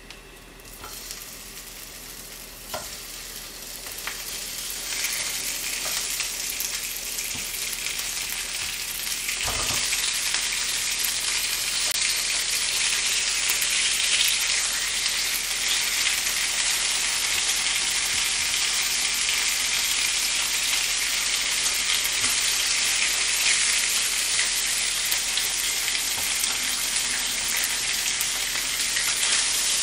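Slices of Spam sizzling in a dry frying pan, frying in their own fat with no oil added. The sizzle builds over the first ten seconds or so as more slices are laid in, then holds steady, with a couple of light knocks along the way.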